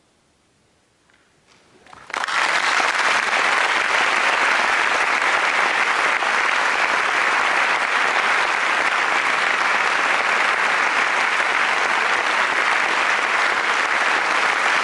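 Near silence for about two seconds, then a concert audience breaks into loud, steady applause that carries on without letting up.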